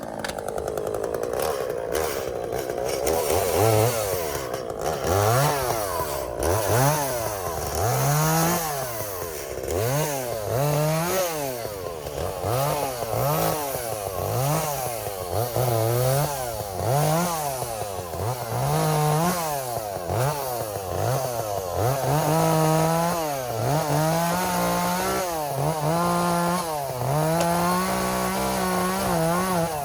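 Echo two-stroke chainsaw running at full throttle and easing off over and over, about once every one and a half seconds, as it cuts timber. The revs are held high for longer spells later on.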